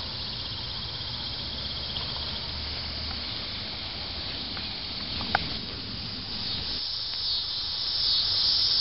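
Insects trilling steadily, a high-pitched drone that grows louder near the end, with one faint click about five seconds in.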